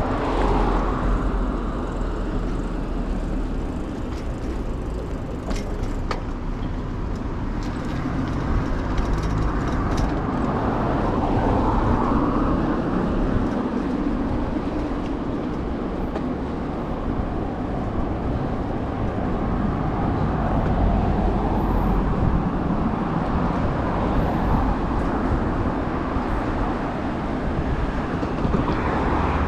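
Steady rolling noise of a bicycle ridden along stone paving, with a few sharp rattling clicks in the first ten seconds and passing city traffic behind.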